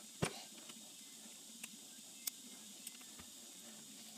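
A few sharp metal clicks and taps from tools and parts being handled on a three-jaw lathe chuck during reassembly. The first click, about a quarter second in, is the loudest, and a soft low knock follows near the end.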